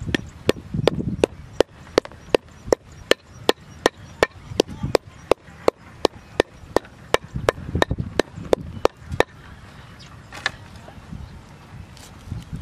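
Knife chopping herb stalks on a round wooden cutting board: steady, even chops about two and a half a second, stopping about nine seconds in, then a couple of single strikes.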